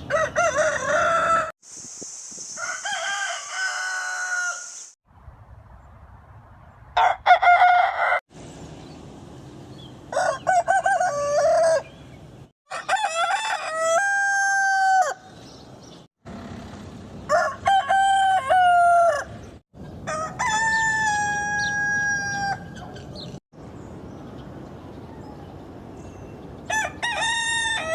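Roosters crowing, about eight separate crows of one to two seconds each, one after another. Each crow comes from a different recording, with abrupt cuts and a changing background hiss between them.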